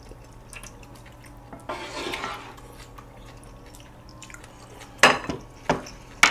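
Rice porridge being scooped with a wooden ladle and poured into a glass bowl, a soft wet slosh about two seconds in. Near the end come three sharp knocks of dishes and utensils, the first the loudest.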